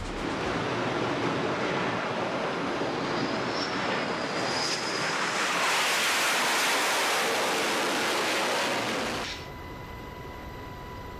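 Rushing jet and wind noise, swelling loudest in the middle as an F/A-18 Hornet lands on a carrier deck. About nine seconds in it cuts suddenly to a quieter, steady helicopter cabin drone with a thin steady whine.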